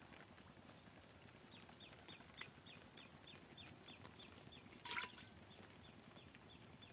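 A caught fish drops with a splash and a short metallic clink into an aluminium pot of water about five seconds in. Under it, faint short high chirps repeat about three times a second, an animal calling from the wet field.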